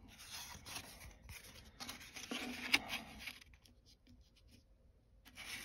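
Faint scratchy rustling of a thin strip of wood veneer being handled and rubbed against the cabinet's wooden side, in patches over the first three seconds or so, with a sharp tick nearly three seconds in.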